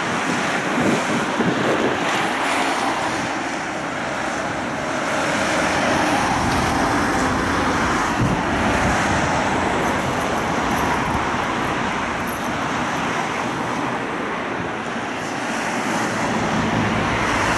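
Steady running noise of a moving tram heard from inside the car, with road traffic passing alongside.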